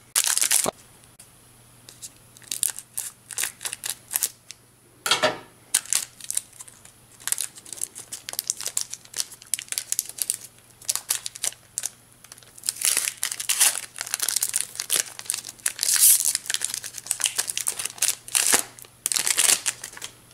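Foil trading-card booster pack wrapper crinkling as it is torn open by hand, in irregular crackles that thicken toward the end.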